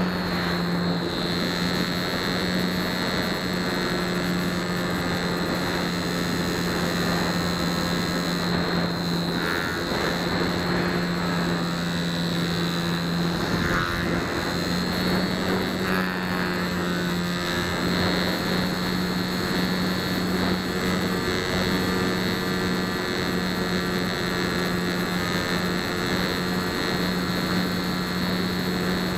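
Onboard sound of a Flite Test Nutball foam RC plane in flight: its electric motor and propeller running steadily, a low drone with a high whine over it, with rushing air noise. About halfway through the pitch steps up slightly and holds.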